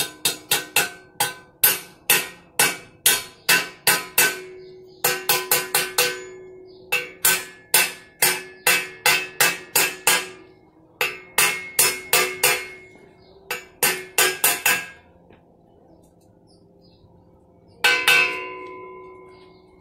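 Claw hammer tapping a headset cup into the head tube of a bicycle frame: quick runs of sharp metal blows, about three a second, each ringing like a bell. The blows pause for a couple of seconds near the end, then come back once with a longer ring.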